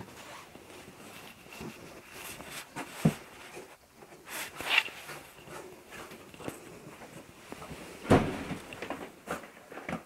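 Footsteps and handling noise in a cramped wooden-floored entryway: irregular knocks and rustles, the loudest knock about eight seconds in.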